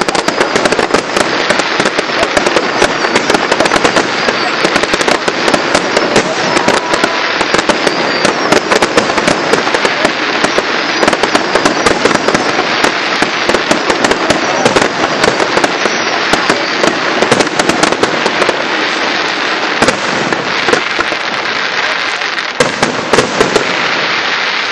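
Fireworks display: a dense, continuous barrage of crackling and sharp bangs with no pause.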